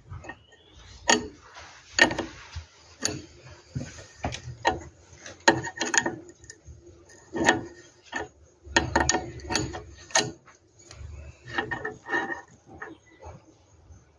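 Open-ended steel spanner unscrewing the brass headgear of a piston-type tap from the tap body: irregular metallic clicks and scrapes, one or two a second, as the spanner is set on the hex, turned and reset.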